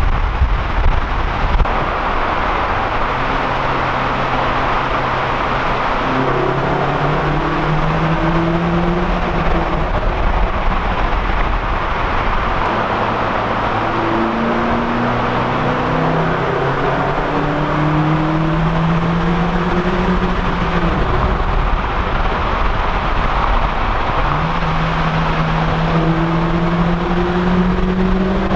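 Vauxhall Corsa E's 1.4 naturally aspirated four-cylinder engine with an open cone air filter, its induction and engine note climbing steadily in pitch through three long pulls under acceleration, each one breaking off at a gear change or lift. A constant rush of road and tyre noise runs underneath.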